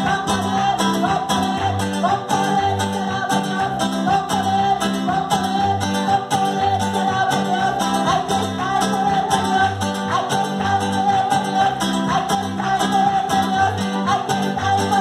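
Latin American dance music with a steady beat, plucked guitar and a singing voice.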